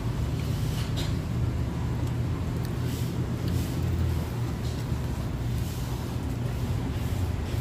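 Steady low rumble of nearby road traffic, with a few faint clicks and scrapes of a plastic fork cutting into a tamale on a paper plate.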